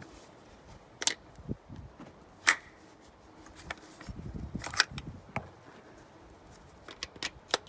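Metallic clicks and clacks of an Intratec Tec-22 pistol being handled while a failed feed is cleared, about seven sharp separate clicks with some duller handling noise between.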